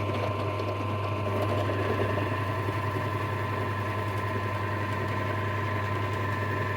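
Small electric motor running steadily, spinning a shotgun shell in a crimp turnover tool that rolls its uneven factory crimp inwards: a steady hum with a thin whine above it.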